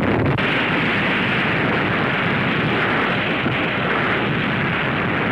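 Atomic bomb blast on an old film soundtrack: a loud, steady rushing rumble that holds without let-up.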